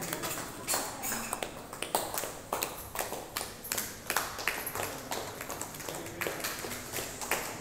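A small group of people clapping unevenly, many sharp claps overlapping with no steady beat.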